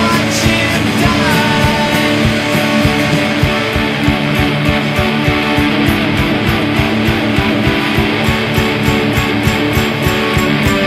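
Rock music led by guitar, loud and even, over a steady drum beat.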